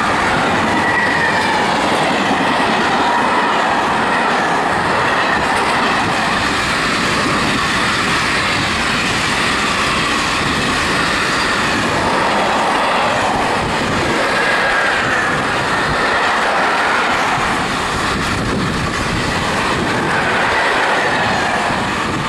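Freight wagons rolling past close by: a loud, steady clatter of steel wheels on rail, with a faint wavering high squeal from the wheels. It eases as the last wagon passes at the end.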